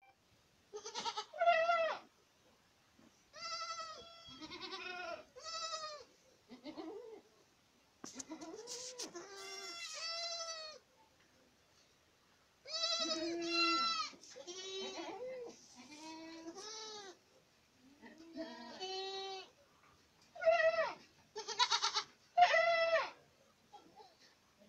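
Young Boer goat kids bleating over and over, short wavering calls from several animals, some high-pitched and some lower, in quick bunches with short pauses between them. The loudest calls come near the end.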